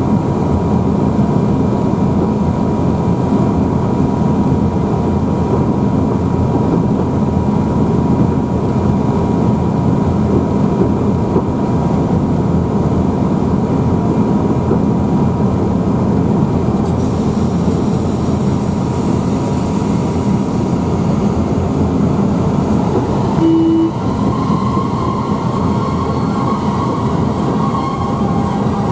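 Steady running noise of a class 121 Škoda electric locomotive, heard from the cab as it rolls slowly through a station. A short single beep sounds about 23 seconds in.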